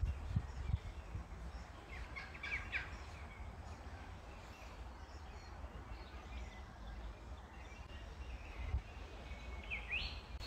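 Outdoor ambience: wind rumbling on the microphone, with birds chirping now and then, a short cluster of chirps about two and a half seconds in and a quick rising call near the end.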